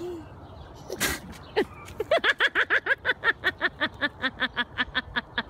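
A short, sharp breathy burst about a second in, then a long run of fast, rhythmic laughter, about eight quick ha-pulses a second, each dropping in pitch.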